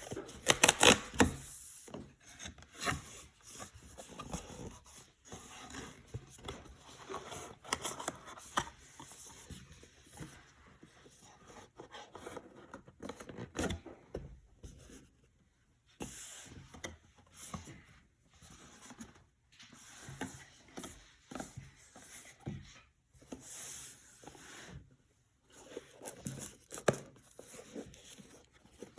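Hands rubbing and scraping at a sealed trading-card box's cardboard and plastic wrap, with irregular short scrapes and taps spread through the stretch.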